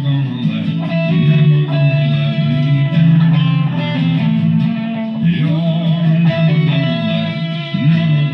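Improvised electric guitar lead line playing over sustained chords, its held notes wavering with vibrato.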